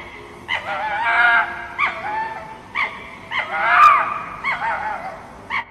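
Red fox calling: two bouts of wavering, pitched cries, one about a second in and a louder one a little past three seconds in.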